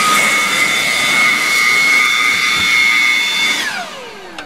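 Electric blower motor running at full speed with a steady high whine, air rushing through its tube. Near the end it is switched off and winds down, its whine falling in pitch.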